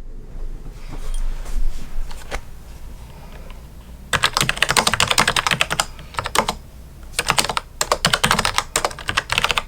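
Typing on a Logitech MX Mechanical keyboard with tactile brown switches. A few faint clicks come first, then about four seconds in fast runs of keystrokes start, with a short pause in the middle before the typing resumes.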